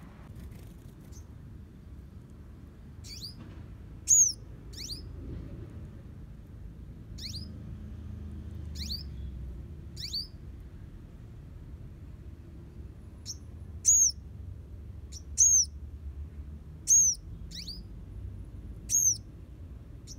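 Purple sunbird giving short, sharp falling chirps, a dozen or so at irregular intervals, some much louder than others, over a low steady background rumble.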